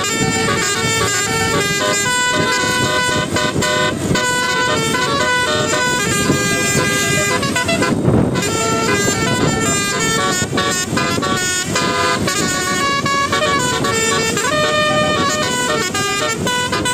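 Bus 'telolet' musical air horn playing a Basuri melody, a fast run of stepped horn notes that keeps going throughout. A short noisy burst about eight seconds in is the loudest moment.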